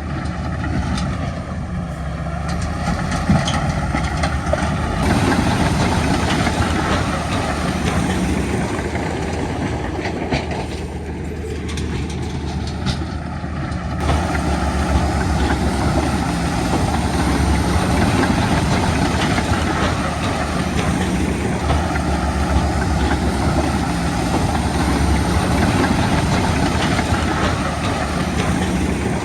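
Heavy diesel earthmoving machinery at work: a crawler bulldozer's engine running steadily under load, with the clanking rattle of its steel tracks. The sound shifts abruptly twice, about 5 and 14 seconds in.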